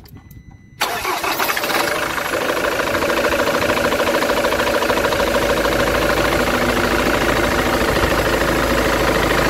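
Ford Transit engine cranked and started after a short beep: it catches about a second in, runs up briefly, then settles to a steady idle with a knock. The knock is still there with a new belt tensioner and idler pulley fitted; a second diagnosis put it down to a failing crankshaft pulley.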